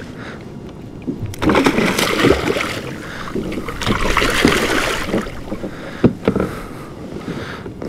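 Water splashing hard beside a kayak for a few seconds as a lingcod is shaken off the hook at the surface and released. A sharp knock follows about six seconds in.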